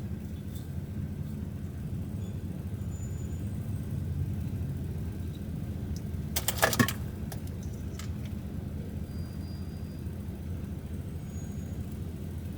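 Steady low rumble of a vehicle engine running, with a brief rattle of sharp clicks about six and a half seconds in.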